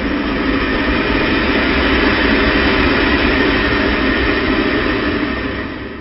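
A sound effect of a loud, steady rushing rumble, like a large engine or jet, that fades out near the end.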